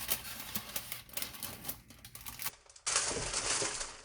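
Irregular small clicks and taps, then about three seconds in a sudden change to a steady hiss.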